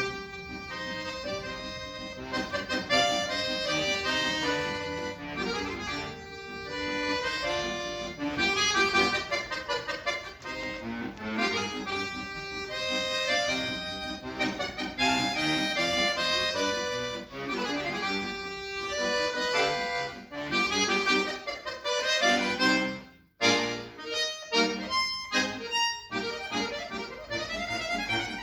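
Accordion being played: fast runs of notes over chords, with a brief break about 23 seconds in before the playing goes on.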